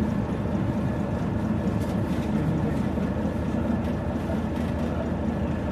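Mitsubishi P-MP218M city bus's diesel engine running steadily under way, heard from inside the cabin, with road noise.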